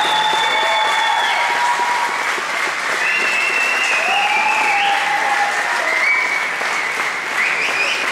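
Audience applauding steadily, with a few held high tones sounding over the clapping.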